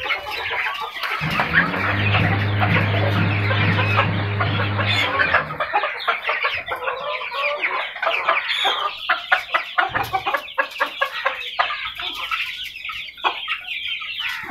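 A flock of two-month-old black Kadaknath (karinkozhi) chickens peeping and chirping constantly as they crowd and peck at feed. A low steady hum sits under them for a few seconds in the first half.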